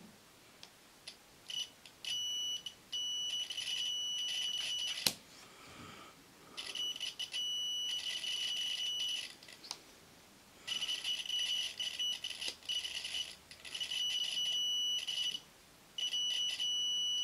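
Digital multimeter continuity beeper sounding a steady high-pitched beep as its probes are held across a glass cartridge fuse. The beep cuts in and out in stretches as the probe contact comes and goes, with one sharp click about five seconds in. The beep shows the fuse conducts: it tests good.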